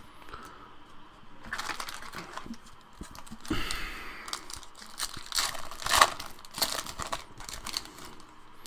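A trading card pack's wrapper being torn open and crinkled, along with the cards inside being handled, in irregular rustling bursts; the sharpest crackle comes about six seconds in.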